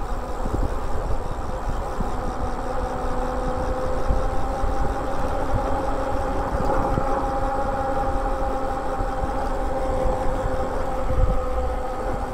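Lyric Graffiti e-bike cruising at a steady speed: the drive gives off a steady hum that holds its pitch, with low wind rumble on the microphone.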